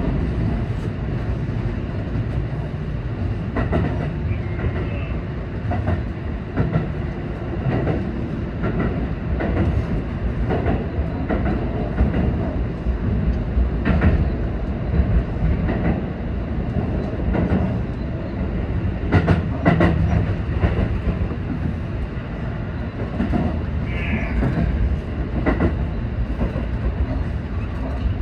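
Seibu 20000 series electric commuter train running at speed with a steady rumble. Its wheels click over rail joints now and then, with a quick run of clicks about two-thirds of the way through.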